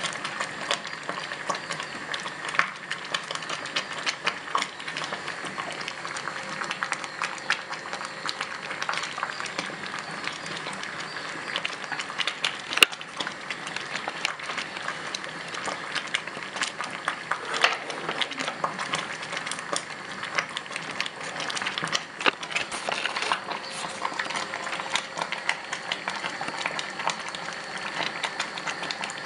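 Thin maize-meal porridge for sadza bubbling at a rolling boil in an open saucepan: a dense, irregular run of small pops and plops over a steady hiss, with one sharper click about 13 seconds in.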